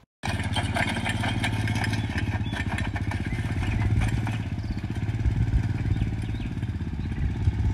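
A four-wheeler's engine running at a steady low throttle as the ATV rolls slowly, with a fast, even exhaust pulse. It cuts in suddenly just after the start.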